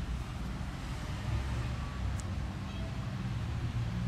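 Steady low rumble of road traffic with a low hum. There is one short high squeak about two seconds in.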